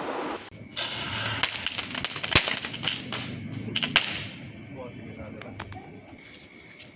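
Small chitput firecracker going off: a hissing burn with rapid sharp crackling pops that starts just under a second in, dies away about four seconds in, and leaves a few faint scattered pops.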